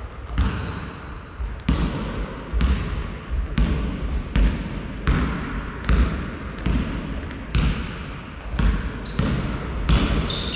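Basketball being dribbled on a sports-hall floor, about one bounce a second, each bounce echoing in the large hall. Short high squeaks of shoes on the court come in between, mostly in the second half.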